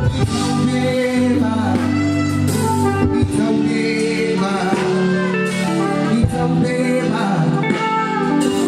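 Music played through a PA at a sound check: a singer holding long notes over a band with guitar.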